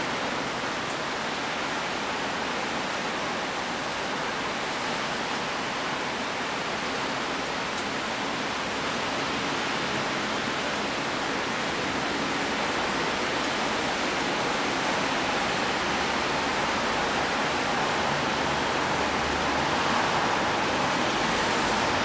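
Rain falling steadily, a continuous even hiss that grows a little louder over the second half.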